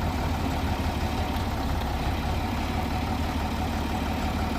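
Engine of a bucket loader idling steadily.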